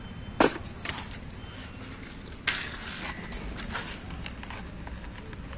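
Two sharp knocks about two seconds apart, the first the loudest, with lighter clicks and rustles between them, as objects are handled close to the microphone.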